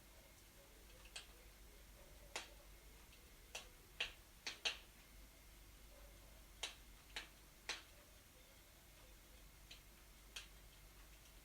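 Firewood burning in a fireplace, crackling with about a dozen sharp, irregular pops, several bunched together in the middle, over a faint steady hiss.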